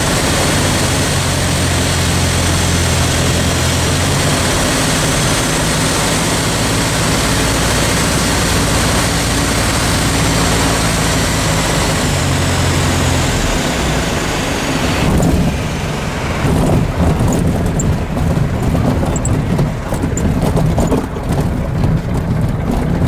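Light single-engine propeller plane's piston engine running steadily, heard from inside the cockpit with a strong rush of air and propeller noise, its tone shifting slightly with small power changes on the approach. About fifteen seconds in, the rushing hiss drops off abruptly as it touches down, and the rest is an uneven, bumpy rumble of the wheels rolling over the grass strip with the engine still running.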